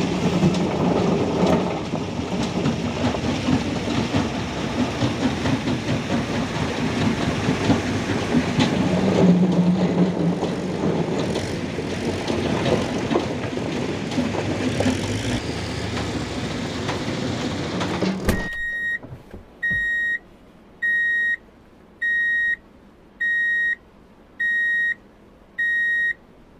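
Mitsubishi Fuso dump truck's diesel engine running as the truck, loaded with rocks, pulls away over stony ground. About eighteen seconds in the engine noise cuts off abruptly and a clean electronic beep repeats about once a second, each beep under a second long.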